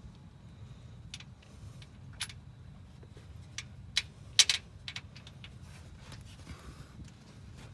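Scattered metal clinks and taps from hand tools and bolts while a car starter is being bolted in, loudest as a quick cluster of clinks about four and a half seconds in, over a steady low hum.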